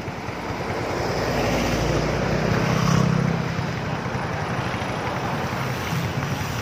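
A motor vehicle's engine running with road and wind noise, getting louder to a peak about three seconds in, with wind buffeting the microphone.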